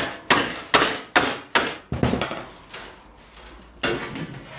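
Hammer blows on the edge of a steel plate, bending a flange over: a run of about six sharp strikes, two or so a second, then a pause and one more strike near the end.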